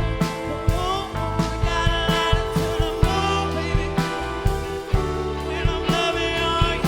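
Live soul-funk band playing without sung words: a steady drum beat, heavy bass and sliding melodic lines over held chords.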